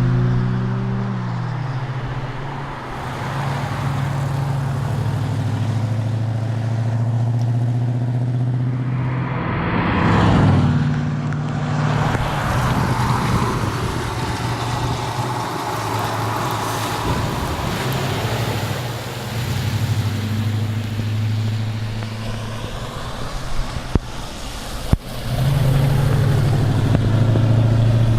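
Ford XB Falcon John Goss Special's V8 engine running on the road at a fairly steady pace, its pitch dropping as it eases off at the start. A swell of road or wind noise comes about ten seconds in, and a few sharp knocks a couple of seconds before the engine pulls harder near the end.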